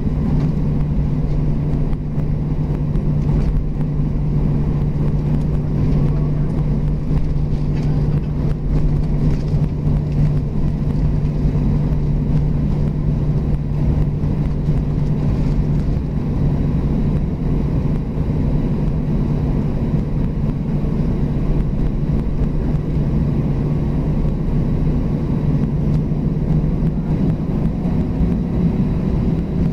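Airbus A320 engines heard from inside the cabin at a window seat, running at low power as the airliner taxis onto the runway: a steady drone with a low hum. Near the end the hum rises slightly in pitch.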